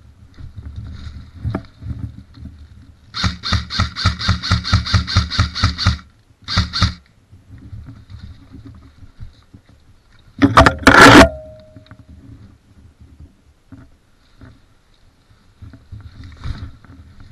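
Airsoft M4 electric rifle firing on full auto: a long burst of evenly spaced shots about three seconds in, then a short second burst. A louder, sharp crash follows near the middle.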